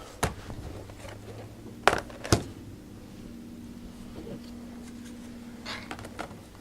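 A laptop battery pack being fitted into the underside of a Toshiba Satellite L755D: a few sharp plastic clicks and knocks, the loudest about two and a half seconds in as it snaps into place, with softer taps near the end.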